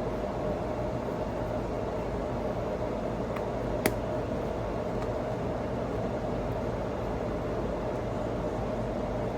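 A steady mechanical hum with a sharp click about four seconds in.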